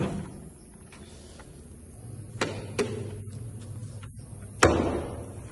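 Sharp knocks with a ringing tail: two quick ones about two and a half seconds in, then a louder bang near the end that dies away over about a second.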